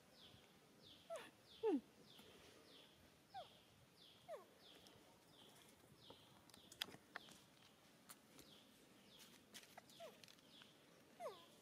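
Animal calls: about six short squeaks that fall in pitch, scattered through, over a faint high chirping repeated about twice a second. A few light clicks come near the middle.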